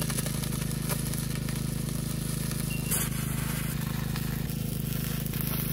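Stick welding: the electrode's arc crackling and sizzling steadily as a bead is run along a steel cross piece, with a steady hum underneath.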